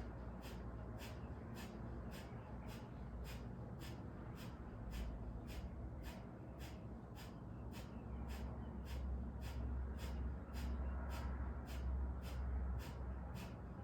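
Breath of fire (Kundalini pranayama): rapid, rhythmic forceful exhales through the nose, about two a second, each a short sharp puff as the navel pulls back to the spine. A low rumble sits underneath and grows louder in the second half.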